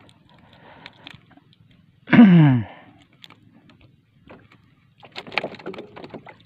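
A man's short wordless exclamation, falling in pitch, about two seconds in. Near the end come quick clicks and rustling as the small fish is handled off the hook and dropped into a mesh basket.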